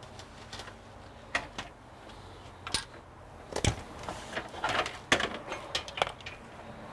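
Irregular clicks, taps and knocks of computer hardware being handled while the water-cooling unit is taken off, with one heavier knock about three and a half seconds in and a quick flurry of clicks around five seconds in.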